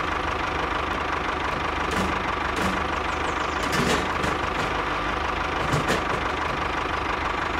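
Tractor engine running steadily at idle with an even, unbroken chug, with a few faint clicks.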